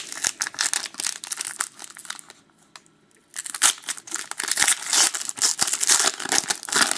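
Trading card pack wrapper crinkling and tearing as the pack is opened by hand, in two bouts of dense crackling with a short pause about two and a half seconds in.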